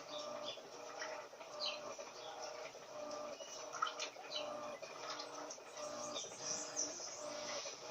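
Turbo LT12F top-loading washing machine running its wash cycle. The motor hum comes in short, evenly repeating pulses as the agitator swings back and forth, with short high chirps over it.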